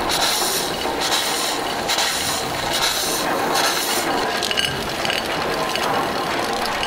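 1885 Gimson compound walking-beam steam engine turning over slowly on steam. Hiss comes in pulses about once a second for the first few seconds, then gives way to light metallic clinks repeating several times a second.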